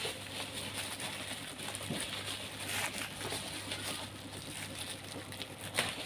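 Black plastic parcel wrapping rustling and crinkling as it is pulled and picked open by hand, with irregular sharp crackles.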